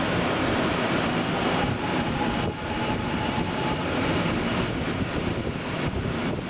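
Rushing air and rolling noise of a departing train, recorded at an open carriage window, with the slipstream buffeting the microphone. A faint steady whine runs under it for a couple of seconds.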